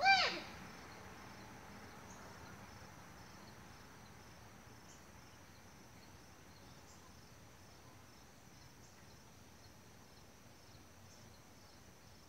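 Faint steady chirring of insects, a thin high drone with a soft pulse about every two seconds. A brief high-pitched squeal right at the start is the loudest sound.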